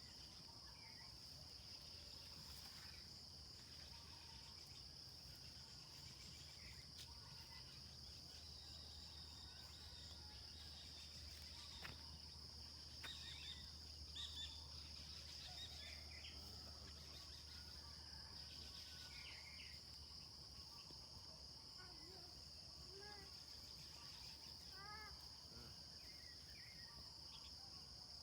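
Faint, steady high-pitched insect drone, with a few short bird chirps in the middle and again near the end.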